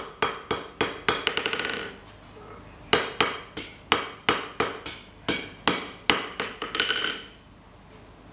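Blacksmith's hammer striking a steel bar being forged on the anvil, in sharp ringing blows about three a second. There are two runs with a short pause between them, and each run ends in a quick patter of lighter taps.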